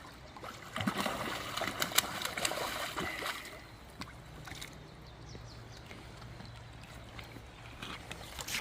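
River water trickling and gurgling close by, with a louder stretch of splashing water and sharp clicks from about one to three and a half seconds in, then a quieter steady flow.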